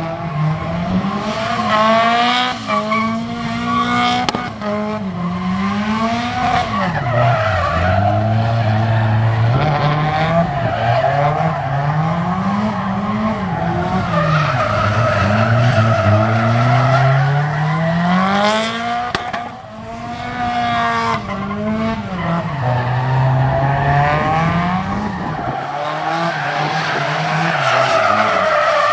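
Nissan Silvia S13 drifting: the engine revs climb and drop over and over as the throttle is worked, with the tyres squealing and skidding underneath.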